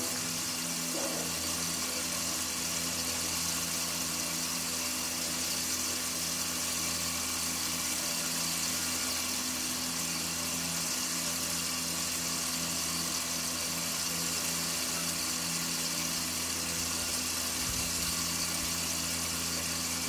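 A motor-driven machine running steadily: a constant low hum with an even hiss above it.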